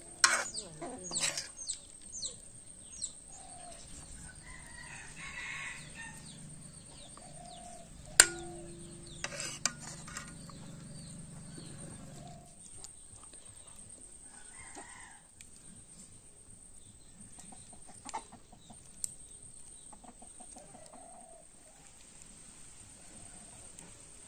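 Steel ladle clinking and scraping against a steel cooking pot and plate in the first couple of seconds, with one sharp metallic clink that rings briefly about eight seconds in. Domestic chickens cluck and call in the background.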